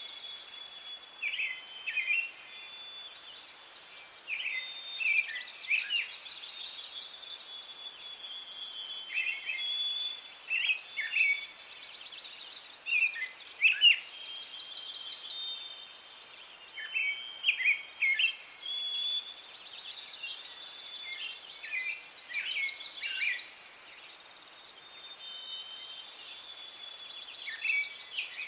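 Birds singing in spring: repeated short chirps and higher whistled, trilling notes from several birds, over a faint steady hiss.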